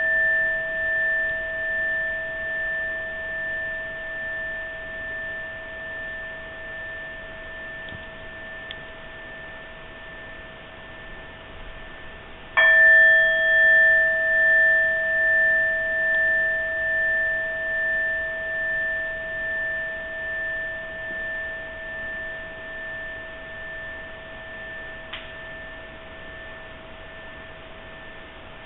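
Inkin, the small hand-held Zen bowl bell, ringing with a low and a higher tone. The ring left from an earlier strike fades, then the bell is struck once about 12 seconds in and rings on, pulsing slowly as it dies away. The bell marks the start of a zazen sitting.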